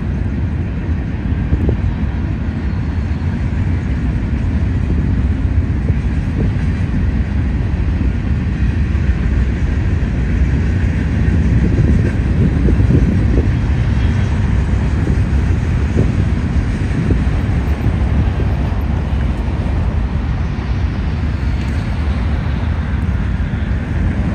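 A freight train of boxcars, a tank car and hoppers rolling past close by. Its steel wheels make a steady, loud rumble on the rails, with a few brief clanks now and then.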